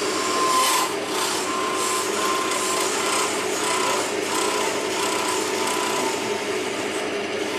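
Stabilo 900 UG wood lathe running with a hand-held turning tool cutting a spinning wooden blank: a steady motor hum under an uneven scraping hiss that comes and goes as the tool bites into the wood.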